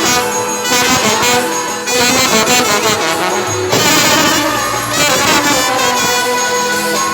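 Brass band playing a tune loudly, with trumpets and trombones carrying the melody.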